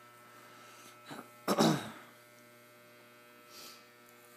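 Electric hair clippers running with a steady motor hum. A brief loud vocal burst, like a cough, cuts in about a second and a half in.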